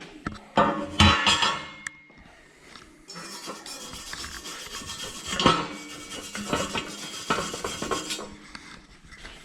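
Aluminium pieces knocking together a few times, then scraping and rubbing against metal for several seconds as they are handled.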